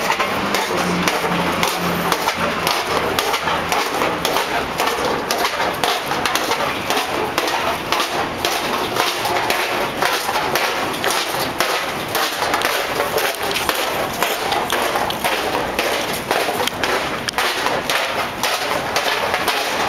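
Continuous rustling with dense, irregular knocks and thumps from walking along a paved sidewalk with a handheld camera.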